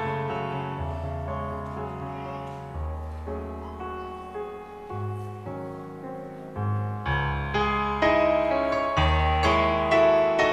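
Slow, tender piano introduction to a hymn: held chords over long low bass notes, getting louder and fuller about seven seconds in.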